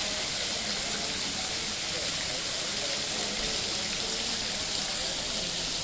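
Water trickling and splashing down the ledges of a tiered stone-wall water feature into a pool, a steady rushing patter.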